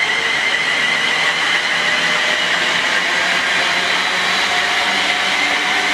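Electric multiple-unit train going through the station, a steady rush of the train with a high electric motor whine over it.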